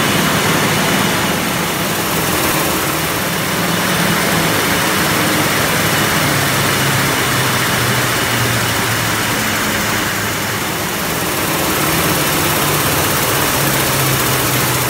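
Krones rotary labelling machine and bottling line running at full production speed, about 72,000 bottles an hour: a loud, steady mechanical din with a low hum that wavers slightly in pitch.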